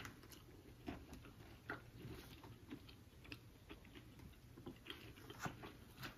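Faint eating sounds: chewing, with scattered soft clicks of plastic forks against styrofoam takeout boxes.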